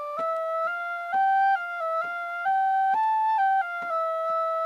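Tin whistle playing a simple melody, one clear note after another stepping up and down. Faint sharp clicks sound underneath about every half second.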